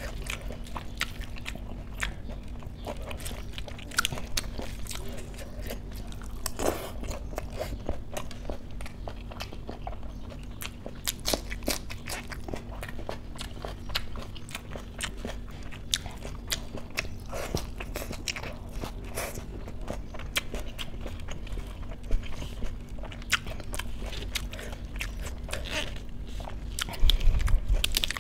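Close-miked chewing and biting, full of small crisp crunches, as crisp lettuce leaves are bitten and eaten along with rice and dal.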